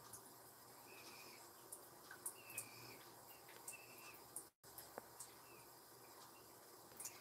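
Near silence: faint room tone with a few soft ticks and several short, faint high chirps.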